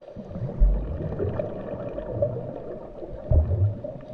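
Underwater ambience sound effect: a gurgling, bubbling wash with low rumbling swells three times.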